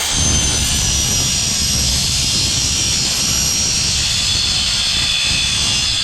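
Power saw with a Diablo blade cutting through an aluminium exhaust pipe: a steady, loud grinding cut with a high blade whine.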